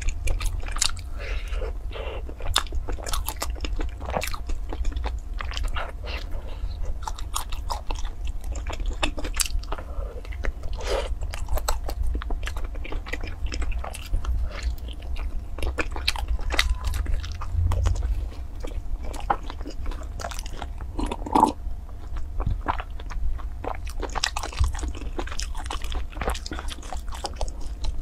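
Close-miked eating: a person biting into and chewing a pink filled pastry, with many small wet mouth clicks, over a steady low hum.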